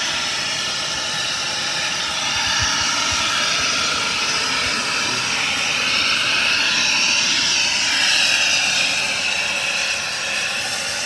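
Steady roar of a jet-type turbine engine running, with a high whine that swells and shifts in pitch about midway.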